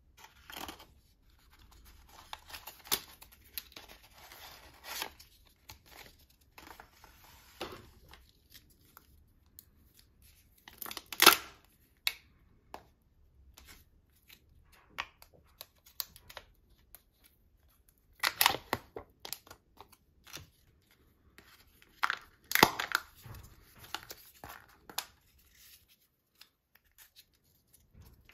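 Kinder Joy egg's foil wrapper and foil lid being torn, peeled and crinkled, with light handling of the plastic egg halves. The crackling comes in scattered bursts. The sharpest rip comes about a third of the way in, and two more strong bursts follow later.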